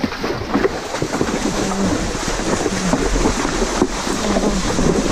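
Horse moving at speed along a wooded trail, heard from the rider's camera: a steady rush of wind on the microphone over a dense clatter of hoofbeats, tack and brushing vegetation.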